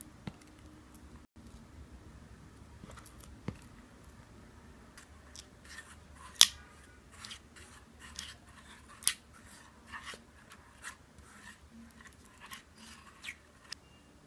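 Silicone spatula stirring sugar syrup in a nonstick saucepan: scattered light clicks and short scrapes against the pan, with two sharper knocks about six and nine seconds in.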